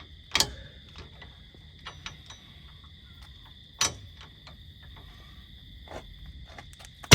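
Crickets trilling steadily. Two sharp metallic clicks cut through, one just under a second in and one near four seconds, from a wrench and socket working the wheel's lug nuts, and a louder knock comes right at the end.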